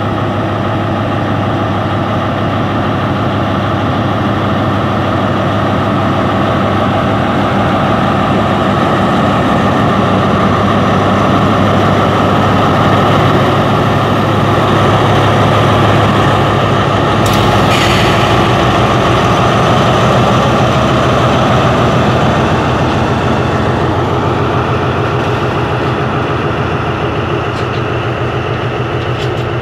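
Diesel-electric locomotive's MTU engine running steadily under load as the locomotive pulls slowly past, hauling a train of loaded stone hopper wagons; it is loudest about halfway through as the engine compartment passes. A short hiss sounds about two-thirds of the way in.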